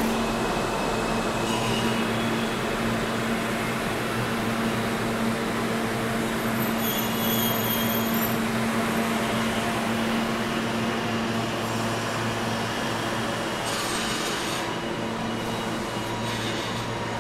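New York City subway train standing at an underground station platform, its idling cars giving a steady hum of ventilation and electrical equipment with a constant low tone.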